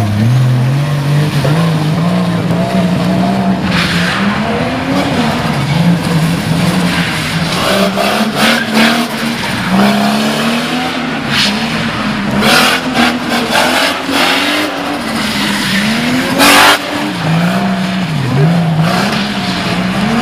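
A car's engine being revved hard, its pitch rising and falling over and over as the car is flung around cones on wet tarmac. Several loud bursts of tyre and wheelspin noise on the wet surface come over it, the loudest a little past halfway and near the end.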